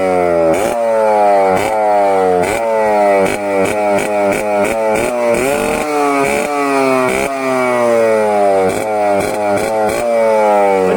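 Yamaha RX100 single-cylinder two-stroke engine revved over and over through its silencer with the baffle tube pulled out, giving a loud free-flowing exhaust note. Each quick throttle blip jumps the revs up, then they fall away, about twice a second.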